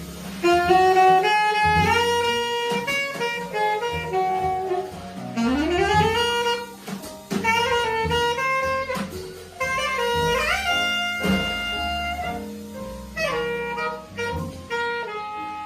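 Alto saxophone playing a slow jazz ballad melody, scooping up into long held notes, over piano, double bass and drums.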